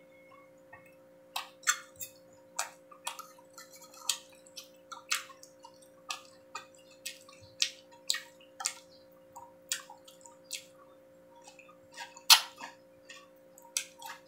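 Close-up eating sounds of pork barbecue being chewed: irregular wet clicks and lip-smacks, about one or two a second, with a fork now and then touching the plate and one louder click near the end. A steady low hum runs underneath.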